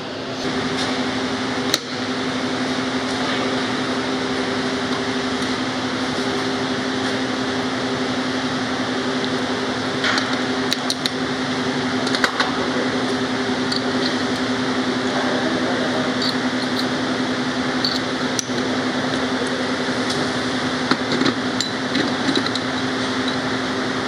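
A steady machine hum, even and unchanging, with a few short sharp metal clinks as engine parts are set onto an aluminium crankcase.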